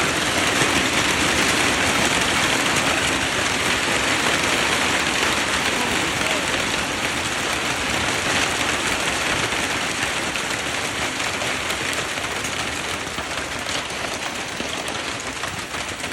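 Heavy hail pelting down: a dense, continuous clatter of countless small impacts, growing a little quieter toward the end.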